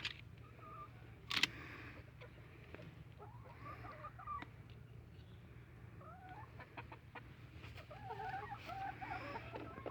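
Laying hens clucking and calling, the calls growing busier towards the end, with a sharp knock about a second and a half in.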